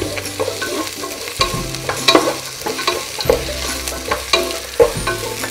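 A wooden spatula stirs chopped vegetables and cashews in a non-stick wok while they sauté in oil, with a light sizzle. The spatula's scrapes and taps on the pan come at irregular moments.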